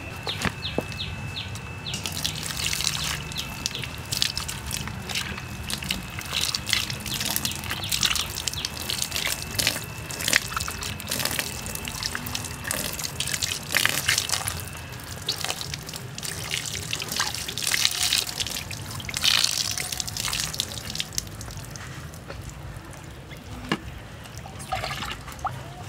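Wet splashing, trickling and dripping as hands rub and wash a plucked duck carcass, water running off the bird into a muddy puddle in irregular bursts that thin out near the end.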